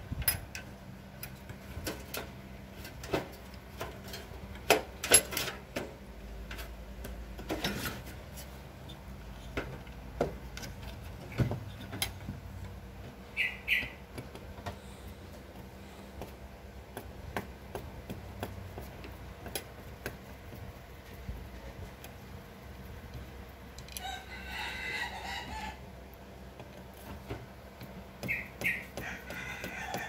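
Scattered clicks and knocks of metal and plastic parts being handled on a Paloma gas water heater's valve assembly. A chicken calls briefly in the background, once about three-quarters of the way through and again near the end.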